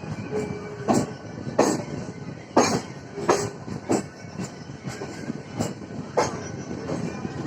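Suburban electric local train running, heard from inside the coach: a steady rumble with sharp, irregular clacks as the wheels pass over rail joints and points.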